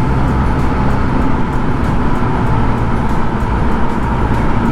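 Scooter engine running steadily at cruising speed with road and wind noise, while riding through a road tunnel.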